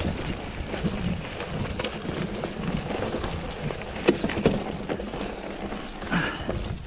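Full-suspension mountain bike rolling over a rough forest trail: tyre rumble on dirt and rock with frequent rattles and knocks from the bike, the sharpest about four seconds in as it rides over rock, and wind on the microphone throughout.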